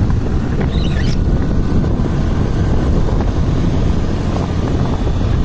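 Wind buffeting the microphone: a loud, steady low rumble, as from filming out in the open or from a moving vehicle.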